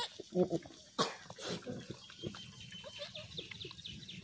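Goat sounds while a newborn kid is held to its mother's teat to suckle: a brief low grunt near the start, then two sharp breathy snorts about a second in, followed by soft snuffling.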